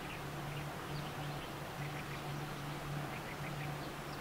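Outdoor field ambience: a low hum that breaks off and resumes every half second or so, with faint, short, high chirps scattered through it.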